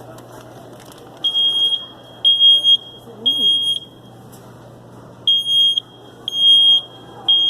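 A smoke alarm beeping in the three-beep evacuation pattern. Two sets of three high-pitched beeps, each about half a second long, with a longer pause between the sets.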